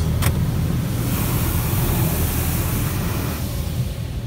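High-pressure water jets of a LaserWash 360 touchless car wash spraying the car's passenger side, heard from inside the cabin as a hissing spray over a steady low hum. The spray is strongest from about a second in and eases near the end; a single sharp click comes just after the start.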